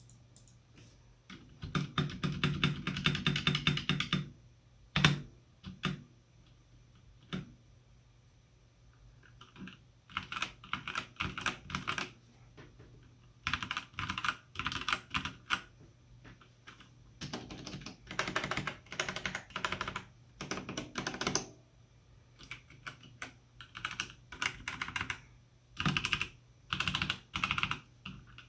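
Keys of an E-Element Z-88 mechanical keyboard with Gateron Brown switches, O-ring dampeners and PBT double-shot keycaps being pressed one key at a time, in runs of quick repeated strokes separated by short pauses and a few single presses.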